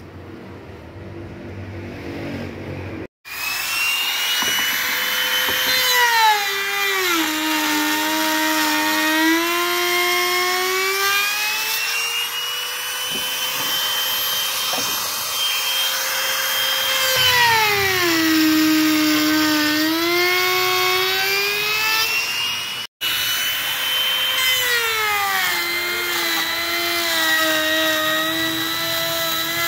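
Electric trim router cutting grooves into a wooden door panel: a high motor whine that sags in pitch several times as the bit loads up in the cut, then climbs back. It starts abruptly a few seconds in and breaks off for an instant about two-thirds of the way through.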